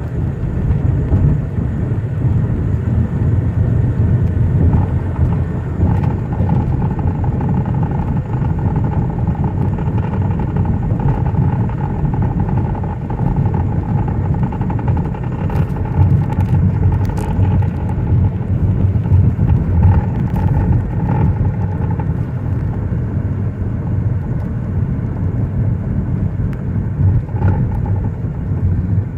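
Inside the cabin of a 2005 Chevrolet Cobalt on the move: a steady road and tyre rumble. A faint steady whine comes in a few seconds in and fades out past the middle, with a few light clicks.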